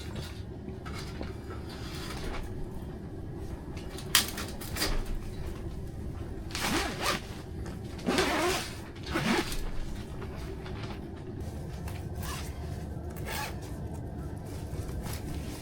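A zipper pulled in three quick strokes, about 6.5 to 9.5 seconds in, after a single sharp click about 4 seconds in, over a steady low hum.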